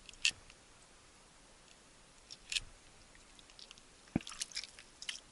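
Knife sawing and crunching into a small fish held in the hands: scattered short crunches and scrapes, with a quick run of clicks and a low knock about four seconds in.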